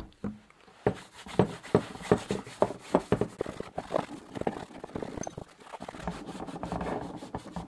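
A cloth rag scrubbed back and forth over a leather bicycle saddle, irregular short scuffing strokes as the surface is wiped clean with a cleaning liquid before leather cream goes on.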